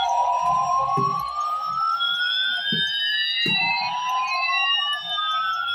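Electronic sound effects from battery-operated toy airliners: slow siren-like tones gliding up and down, one rising while another falls so that they cross. A few short knocks from the running toys come about one, two and three-quarter, and three and a half seconds in.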